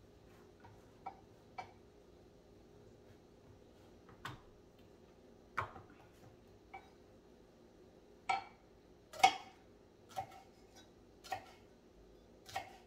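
Knife slicing bitter melon on a cutting board: about ten separate, irregularly spaced chops, the loudest about nine seconds in.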